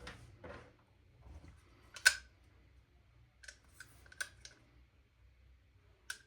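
A few sharp clicks and taps of airsoft rifle parts being handled and fitted together, with the loudest click about two seconds in and a cluster of lighter ones a little later.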